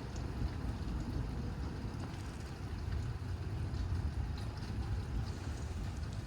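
Wind buffeting the microphone ahead of a thunderstorm: a steady low rumble with a hiss above it.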